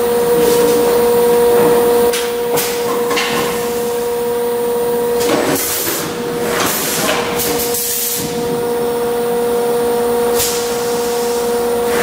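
Schäfer & Flottmann case-packing machine running with a steady hum, broken every second or few by short hisses of pneumatic air and clatters as the cardboard cases are handled and folded.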